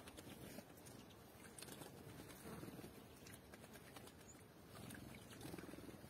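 Faint, scattered light patters and ticks of birds bathing and drinking at a shallow pool of water.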